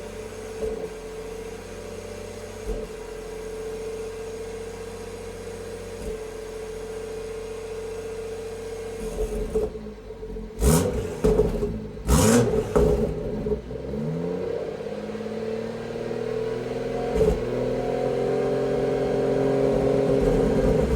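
BMW B58 turbocharged inline-six with a catless downpipe idling, with a few faint knocks in the idle, which the owner takes for a rough idle since the downpipe went in. About halfway through come two sharp throttle blips, then the revs climb and hold at a higher, steady speed.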